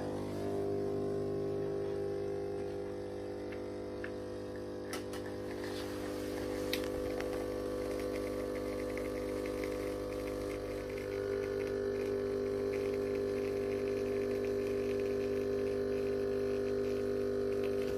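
Solis espresso machine's vibratory pump buzzing steadily while pulling an espresso shot, with the over-pressure valve modified to limit brew pressure to 9 bar.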